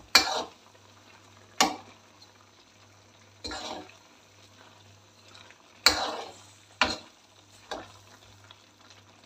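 Metal spoon scraping and clanking against a metal karahi as chicken pieces and tomatoes are stirred in hot oil: six separate scraping strokes at uneven intervals, the loudest at the start and about six seconds in, over a faint steady low hum.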